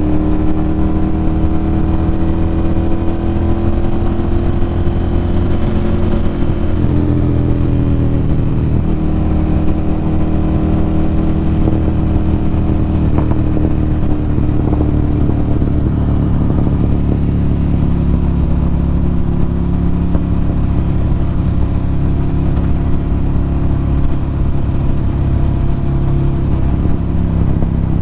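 Ducati Monster 1100 EVO's air-cooled L-twin running through a Termignoni exhaust at a fairly steady engine speed while riding, with a slight drop in pitch about seven seconds in.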